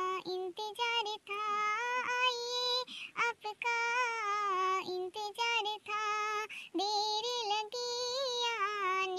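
A woman's high-pitched voice singing a Hindi devotional song to the Mother Goddess, set to a film tune. It is sung solo in long held, wavering notes with short breaks between lines.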